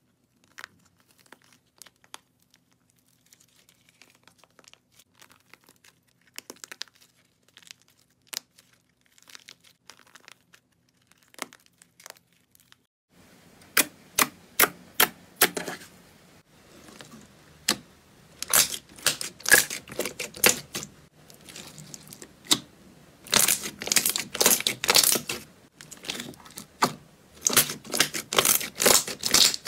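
Slime being handled: first a firm green slime square squeezed in the fingers gives faint, scattered crackles. About halfway through, a glossy purple slime pressed and patted flat by hand gives loud, quick runs of clicking and popping.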